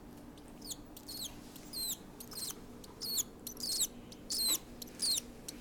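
Cockatiel chick giving a rapid series of short, high-pitched squeaky begging calls, about two a second and coming faster in the second half, while being hand-fed formula.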